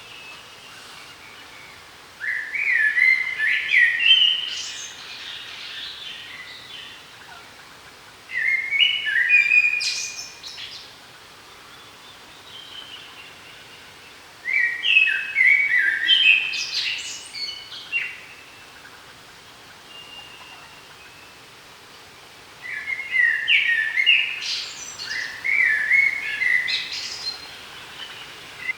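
A songbird singing a short, fast phrase of stepped notes that ends in a high flourish, four times at intervals of several seconds, over a steady background hiss.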